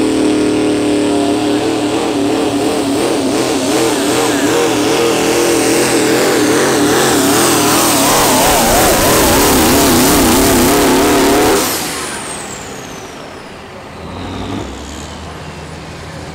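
A 3.0-litre diesel pickup engine running flat out under load as it pulls the sled, its note wavering up and down, then cut off suddenly about twelve seconds in. A high whistle then falls steadily in pitch as the turbo winds down.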